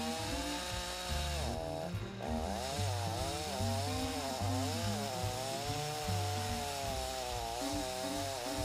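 Chainsaw running under load as it cuts away the soft, rotten outer wood of a fallen konara oak log. The engine pitch wavers up and down as the chain bites, with a brief dip and break about two seconds in.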